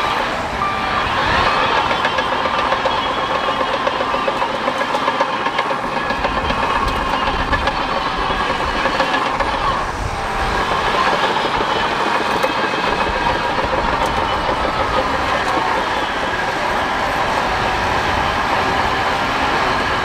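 Bulldozer working, its engine running steadily under the clatter and squeal of its steel tracks, with a brief lull about halfway through.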